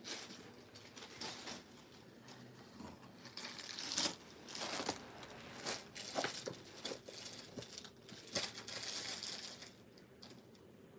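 Clear plastic packaging crinkling and fabric rustling in irregular bursts as suit fabric pieces are unwrapped and laid out by hand. The rustling quiets near the end.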